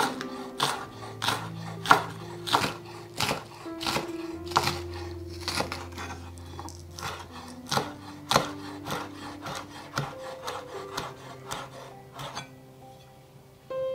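Chef's knife chopping spring onion on a wooden cutting board: a steady run of knife strokes against the board, about one and a half to two a second, which stops near the end.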